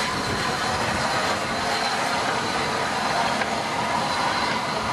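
Rebuilt Bulleid West Country class steam locomotive 34046 Braunton moving slowly off, with a steady hiss of steam.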